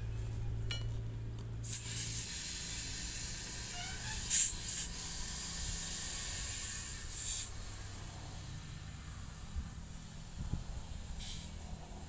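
Compressed air hissing at an air chuck held on a tractor tyre's valve stem: about six short, sharp bursts of hiss as the chuck is pressed on and shifted, with a fainter steady hiss of air flowing into the tyre between them.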